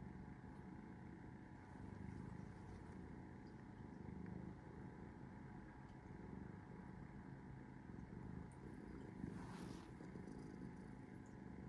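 Domestic cat purring, a faint low rumble that swells and eases with its breaths. A brief rustle about nine and a half seconds in.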